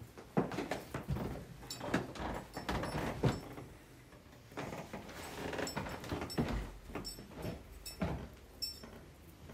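Irregular knocks, bumps and shuffling of people moving about and settling into seats, a few sharp clacks standing out among softer scuffs.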